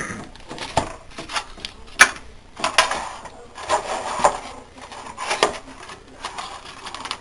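A webcam's retail packaging being handled and opened by hand: a string of irregular clicks, taps and crinkles of plastic and cardboard.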